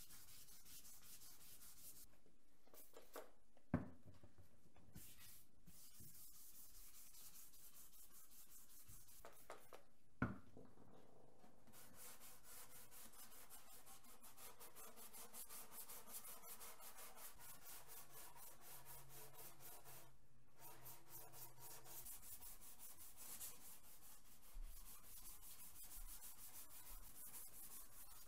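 Faint hand sanding of painted motorcycle bodywork: sandpaper rubbed back and forth in quick repeated strokes. Two sharp knocks come early on.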